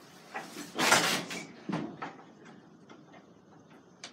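Wooden plank doors being pushed shut: a loud rushing noise about a second in, with a few knocks around it.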